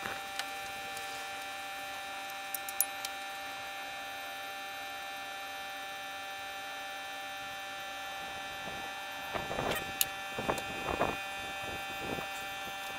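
Electric fuel pump on a Ford 6.9L IDI diesel running with a steady hum while it pushes fuel through the cracked injection lines to purge air from the injection pump. A few light clicks come a few seconds in, and a cluster of metallic clinks from a wrench on the line fittings comes near the end.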